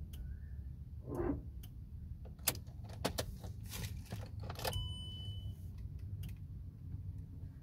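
Keys jangling and a string of sharp clicks from the ignition and starter of a 2016 Volkswagen Vento 1.6 MPI, with a short beep about five seconds in. The starter fails to crank the engine fully, the starter-motor fault that also dims the dashboard lights.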